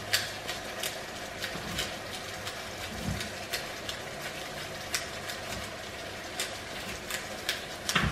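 Pepper grinder being twisted over a frying pan, a run of scattered dry crunching clicks, over a steady low hum and the sizzle of food frying.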